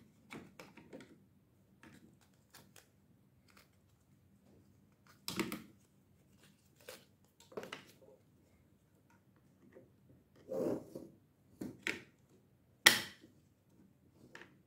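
Hard plastic parts of a Hulkbuster action figure being handled: scattered light clicks, taps and rubbing as its arm and gauntlet are moved, with a sharp plastic knock near the end.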